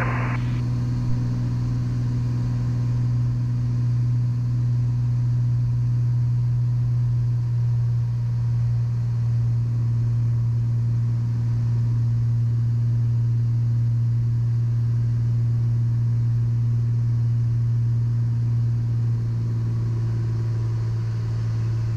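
Piper light aircraft's single piston engine and propeller running steadily during the approach to land, a constant low hum with a slight change in tone a few seconds before the end.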